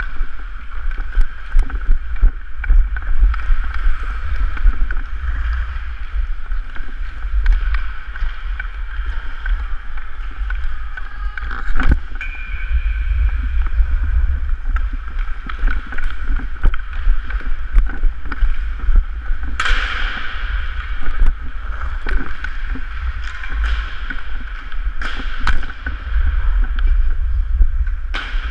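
Ice hockey skates carving and gliding on rink ice from the skater's own point of view, over a steady low rumble, with scattered sharp clacks of stick and puck; the loudest cracks come about twelve and twenty seconds in.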